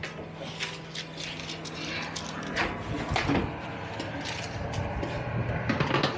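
A metal baking tray holding a silicone bread tin is handled and slid into a hot-air oven: a run of clicks, knocks and metal rattles.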